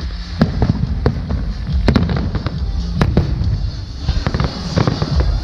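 Aerial fireworks shells bursting: several sharp bangs about a second apart over a continuous low rumble and crackle.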